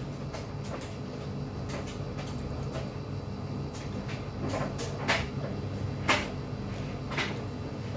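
Eating sounds: a handful of sharp clicks and taps, the clearest about five, six and seven seconds in, over a steady low hum.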